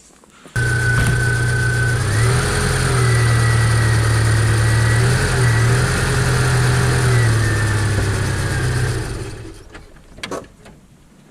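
1997 Jeep Wrangler engine running as the Jeep is rolled forward a short way. Its note steps up in pitch about two seconds in, shifts down and back again mid-way, and dies away near the end.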